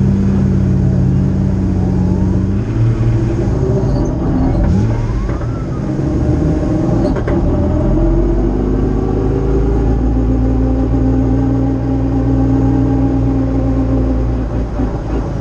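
The 1KHP Nissan March race car's engine running, heard from inside the cabin, its pitch shifting as it idles and is blipped. A brief rising whine comes about five seconds in.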